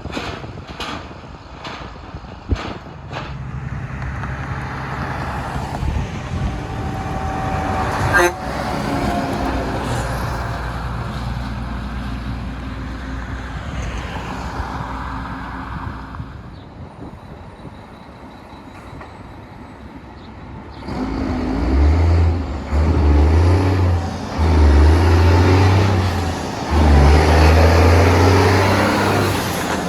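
Heavy diesel trucks running past. About two-thirds of the way in, one truck's engine grows much louder with a deep exhaust rumble that drops off and comes back several times, as when it accelerates through gear changes.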